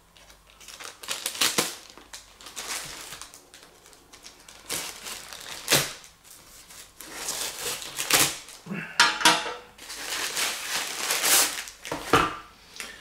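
Black plastic courier mailer being cut and torn open with a multitool knife, the plastic crinkling and rustling in irregular bursts.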